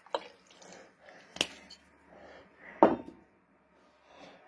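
Liquor poured from a glass bottle into a small glass, then three sharp clinks and knocks of bottle and glass on a wooden table, the loudest about three seconds in.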